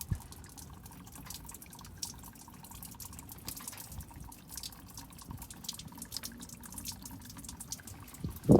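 Engine coolant dripping and trickling from a failed water pump, an irregular patter of small drips: the pump is leaking.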